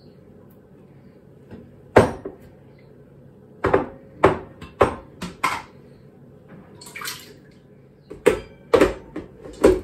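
Egg whites plopping and glugging from a container into a stand mixer's bowl: about nine short, sharp splats and knocks in irregular clusters, with a brief hissy pour about two-thirds of the way through.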